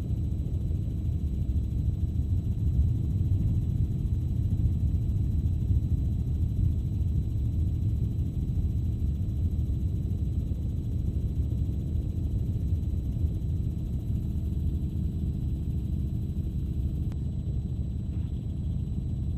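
Helicopter rotor and engine heard from inside the cabin: a steady low rumble with no let-up.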